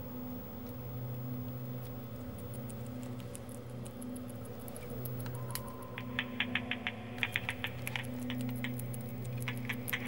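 Bat echolocation calls made audible by a bat detector, heard as rapid, irregular clicks that are faint at first and grow loud about halfway through, over a steady low electrical hum.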